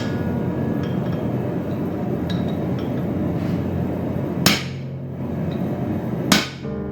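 A few light metal clinks, then two hammer blows on the top die of a spring fuller holding hot steel, about two seconds apart, each ringing briefly, over a steady background hum.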